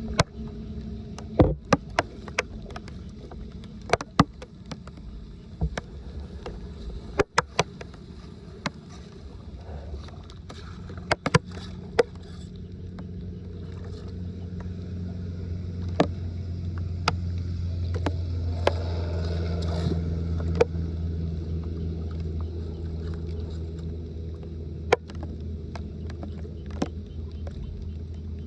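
Floodwater sloshing and draining, with a steady low rumble that swells about halfway through and then eases. Many sharp clicks and knocks sound throughout.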